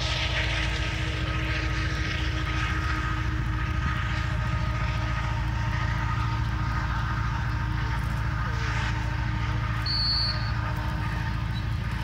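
Freight train rolling past: a steady low rumble with a constant drone of engine tones. About ten seconds in, a short high-pitched whistle sounds once.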